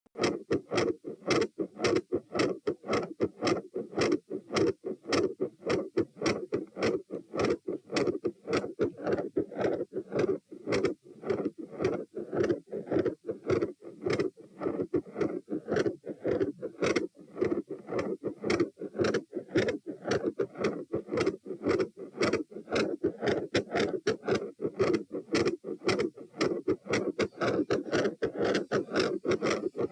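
Human heart sounds recorded at the chest: a steady train of lub-dub beats (S1 and S2), coming quickly with several knocks a second.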